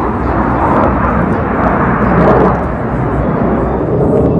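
Jet engine noise from the Blue Angels' formation of F/A-18 jets flying overhead: a steady, wide rumble that swells a little around the middle.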